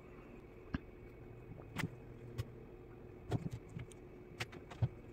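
Cats' paws and claws on a carpeted cat tree: a scattering of light knocks and scratchy clicks as they step about and paw at the perches for treats. A steady low hum runs underneath.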